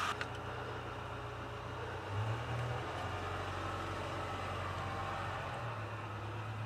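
A steady low mechanical hum like an idling engine, briefly louder about two seconds in.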